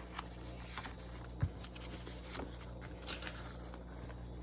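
Quiet handling of a paper instruction booklet: faint rustles and light ticks, with one low thump about a second and a half in, over a steady low hum.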